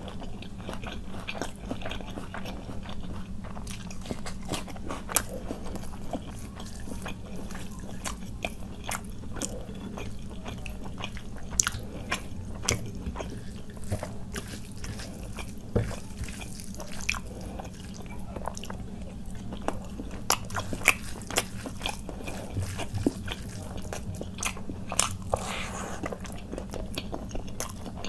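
Close-miked chewing and wet mouth sounds of someone eating khichuri with chicken curry and beguni by hand, with frequent short smacks and clicks over a steady low hum.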